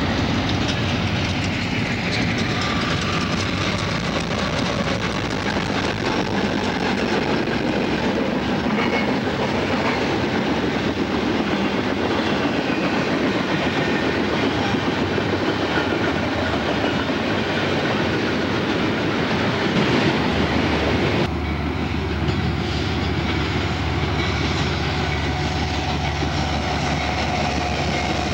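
Several diesel freight locomotives running past, engines rumbling and wheels clicking over the rail joints, with a falling pitch in the first few seconds as they pass. About three-quarters of the way through the sound cuts sharply to an Amtrak Genesis diesel locomotive running, a steady low engine drone with a faint thin whine above it.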